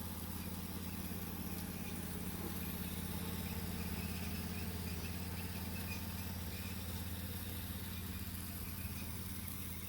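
Steady low mechanical hum of a machine running, unchanging throughout.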